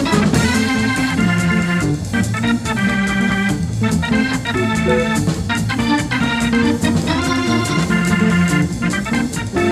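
Jazz played on a Hammond organ: held, stacked organ chords changing every half second or so over a walking low bass line, with regular drum and cymbal strokes keeping time.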